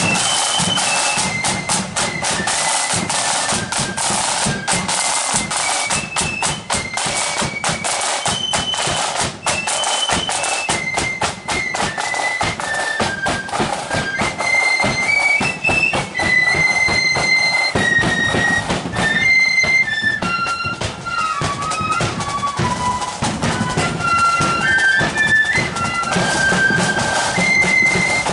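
Marching flute band playing a tune: massed flutes carrying a stepping melody over rapid side-drum beats.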